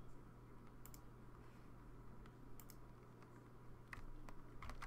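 Faint, scattered clicks of a computer mouse and keyboard: a few single taps, then several in quick succession near the end, over a low steady hum.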